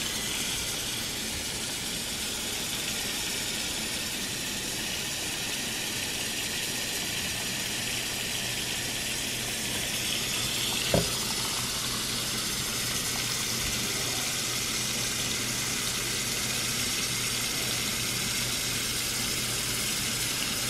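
Kitchen faucet running a steady stream of water into a metal cooking pot of raw turkey wings in a stainless steel sink, filling it. A single short knock about halfway through.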